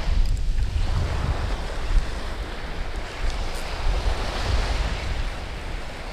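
Small surf washing up a sandy beach, with wind buffeting the microphone in a low, uneven rumble.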